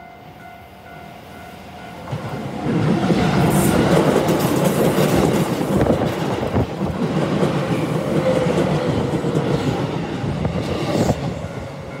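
A level-crossing warning bell rings steadily at the start, then a Keihan 1000 series electric commuter train passes close by and drowns it out. The train's wheels rumble and clatter over the rails and crossing, with brief sharp rattles of the wheels over the crossing a couple of times, easing near the end.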